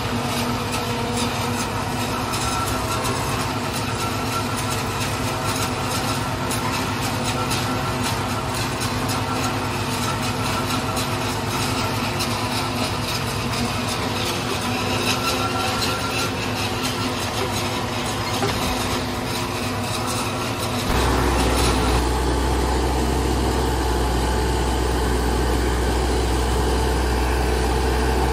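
New Holland tractor engine running steadily under load, driving a tractor-drawn forage harvester that chops standing silage corn and blows it through its spout into a trailer: a continuous machine drone with fine crackling. About three quarters of the way through, the sound changes abruptly to a louder, deeper drone.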